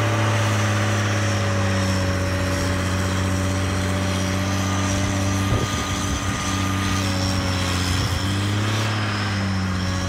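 Huber-Warco motor grader's engine running steadily under load as the grader fills a trench with its blade, with a slight drop in pitch near the end.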